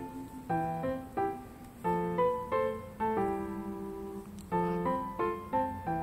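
Background music: a light tune of struck notes and chords in short phrases, with a longer held chord about halfway through.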